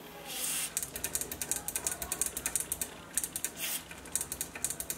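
DeoxIT D5 contact cleaner sprayed from an aerosol can into a stereo receiver's push-button switches. There is a hiss about half a second in, then a fast run of short spurts and clicks, with two more longer hisses a little past three seconds.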